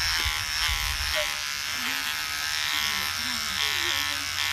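Electric beard trimmer buzzing steadily as it cuts through beard stubble on the cheek.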